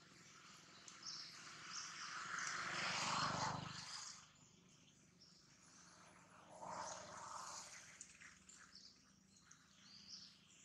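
A distant engine swells and fades, loudest about three seconds in, with a weaker swell a few seconds later over faint outdoor ambience.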